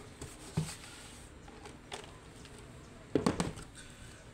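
Handling noise: a few faint taps, then a brief cluster of louder clicks and knocks about three seconds in.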